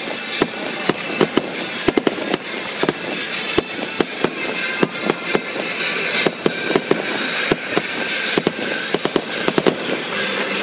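Aerial fireworks display: a rapid, irregular string of sharp pops and bangs, several a second, some louder than others.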